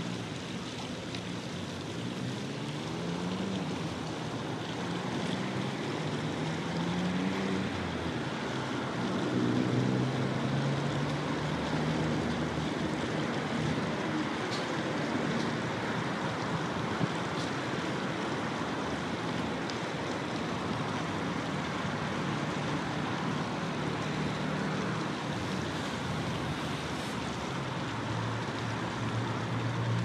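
Traffic on a road bridge: a steady rushing noise with low engine tones that rise and fall as vehicles pass, swelling about ten seconds in.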